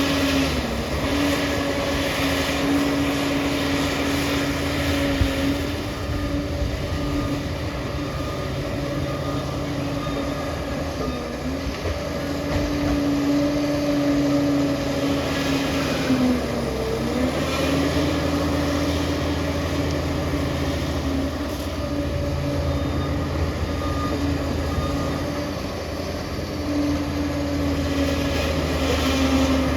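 Liebherr crawler bulldozer working under load: the diesel engine runs with a steady whine and track clatter. The engine's pitch sags briefly about halfway through as it takes the load.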